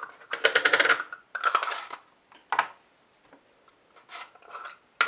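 Plastic face paint pots being handled on a table: a quick run of dry clicks and scrapes in the first two seconds, then a few single clicks as a pot is picked up.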